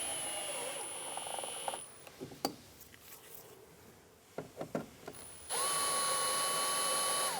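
Power drill running twice as it drives in door-panel screws: a steady whine for about two seconds, a pause with a few small clicks, then a second run starting about five and a half seconds in.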